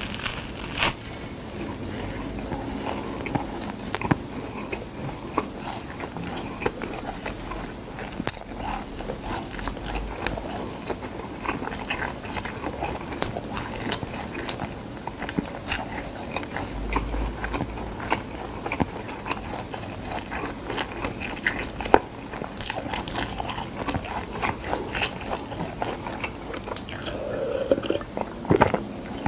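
Close-miked biting and chewing of crisp dried gamtae seaweed sheets: irregular crackly crunches and sharp bites. Near the end, a few gulps of water.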